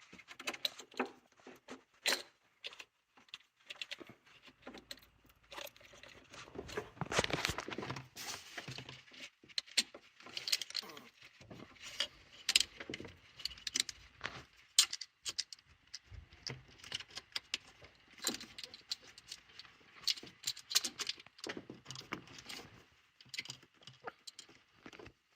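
An ignition coil being worked down into its spark-plug well by hand: scattered clicks, scrapes and rattles of plastic and metal, irregular throughout.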